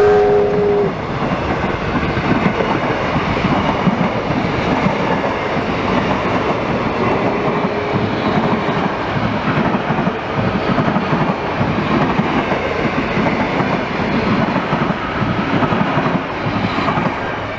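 Steam-hauled passenger carriages rolling past at speed, their wheels clattering and rumbling on the track. The last of the locomotive whistle dies away about a second in, and the rumble eases slightly near the end as the last carriage goes by.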